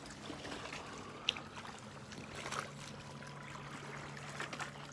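Lake water lapping quietly against a rocky shore over a steady low hum, with one short sharp click about a second in.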